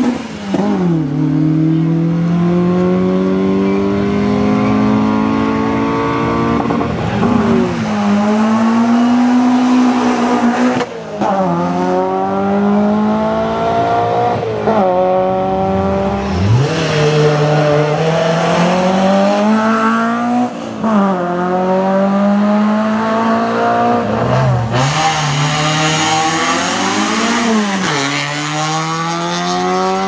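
Rally-prepared small hatchback race cars accelerating hard uphill, one after another. Each engine revs up in a rising whine, and its pitch drops sharply at every upshift.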